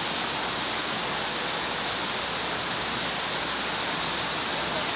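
Waterfall: a steady, even rush of water falling from a height.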